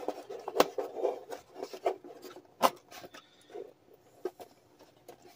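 Hands handling a cardboard packaging tray: fingers rubbing and scraping on the cardboard while unwinding its string ties, with a few sharp clicks and taps at irregular moments.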